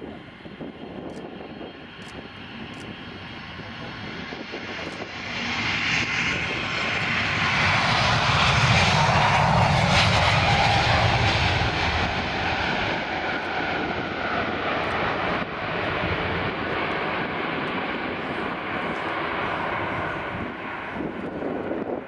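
Airbus A321neo (A321-271NX) taking off at full thrust, its Pratt & Whitney PW1100G geared turbofan engines running loud. The sound swells over a few seconds as the jet rolls past and lifts off, is loudest as it passes, then eases slowly as it climbs away.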